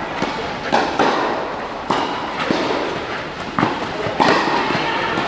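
Tennis rackets striking the ball during a doubles rally: a series of sharp hits, roughly one every second.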